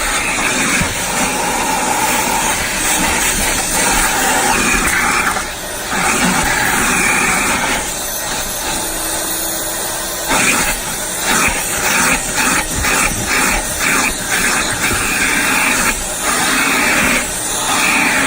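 Car-wash vacuum running, its hose nozzle sucking dirt and dog hair from a truck's cab floor. The rushing sound shifts as the nozzle is moved, with a run of quick changes about two-thirds of the way through.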